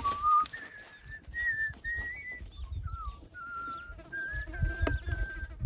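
Whistling: a run of about a dozen short, clear notes, each held briefly at a steady pitch and moving up and down like a simple tune, over an intermittent low rumble.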